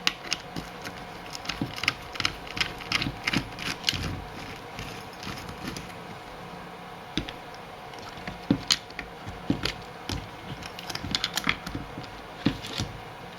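Light, irregular clicks and taps of a small screwdriver and hard plastic RC truck parts being handled, as the steering servo is worked out of a Traxxas Stampede chassis. The clicking comes in busy clusters with a quieter stretch in the middle.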